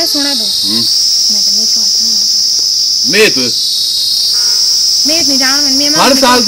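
Loud, steady, high-pitched drone of insects, with voices talking under it near the end.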